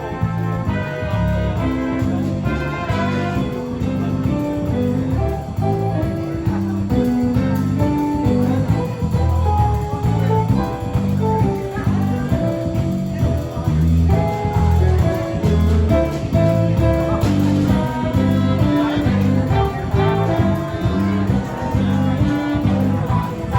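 Jazzy instrumental music with brass and a steady beat.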